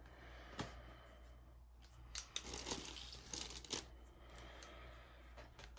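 Crinkling and rustling of a thin translucent protective sheet as it is handled and folded back off a pastel painting: irregular crackles, busiest from about two to four seconds in.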